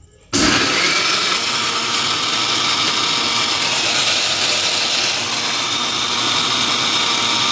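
Electric mixer grinder (mixie) switched on about a third of a second in, its motor running loud and steady as it grinds a spice paste for egg curry.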